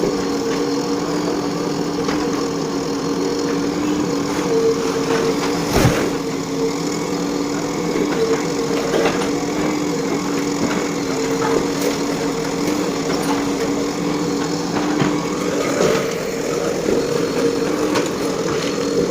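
JCB 3DX backhoe loader's diesel engine running steadily, with scattered knocks and one sharp crack about six seconds in.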